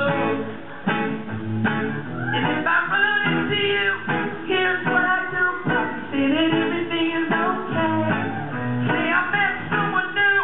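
Male vocalist singing over a strummed acoustic guitar in a live pop performance.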